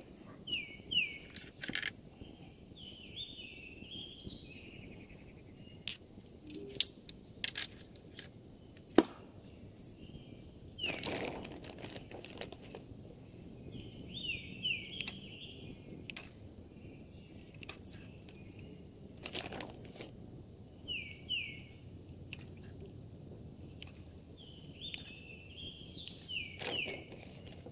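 Songbirds singing in short repeated chirping phrases that come and go, with scattered sharp clicks and knocks, the two loudest about seven and nine seconds in.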